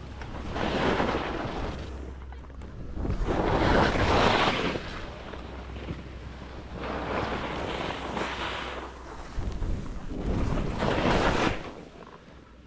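Nordica Enforcer Free 104 skis swishing and scraping through chopped powder snow in slow turns: four swells of noise, one with each turn, a couple of seconds apart. Under them is a low wind rumble on the microphone that drops away about nine seconds in.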